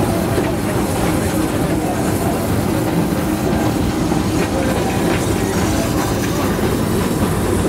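Steam train running, heard from an open passenger car: a steady rumble and clatter of wheels on the rails.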